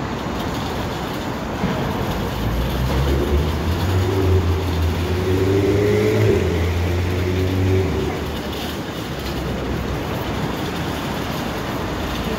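Steady road-traffic noise, with the low hum of a large vehicle's engine swelling from about two seconds in and fading away near eight seconds.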